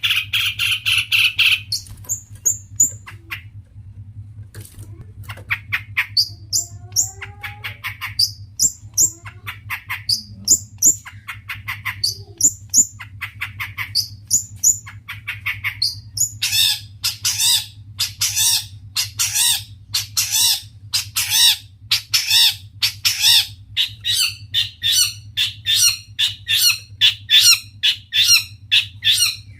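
Long-tailed shrike (cendet) singing hard: quick runs of harsh, scratchy chattering notes mixed with higher whistled phrases, turning about halfway through into a dense string of harsh calls, several a second. A steady low hum runs underneath.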